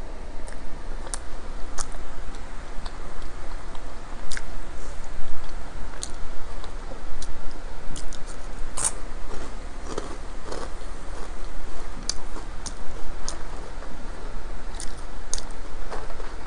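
Close-miked chewing of a mouthful of pizza, with scattered sharp mouth clicks and smacks.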